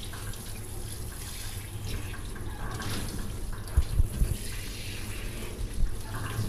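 Water spraying steadily from a handheld shower sprayer onto a dog being rinsed in a stainless steel grooming tub. A couple of brief low thumps about four seconds in.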